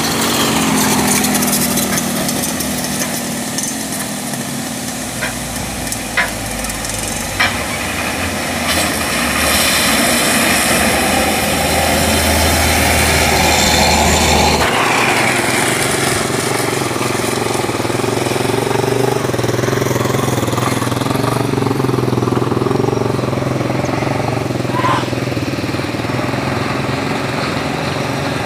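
Diesel engines of heavily loaded log trucks, a Hino among them, running steadily as they drive past on a dirt road. The sound changes abruptly about halfway through, and there are two brief sharp knocks a little over a second apart in the first half.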